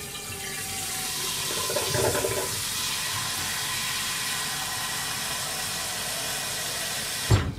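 Kitchen tap running steadily, filling a pot with water for boiling pasta, then shut off abruptly with a short knock near the end.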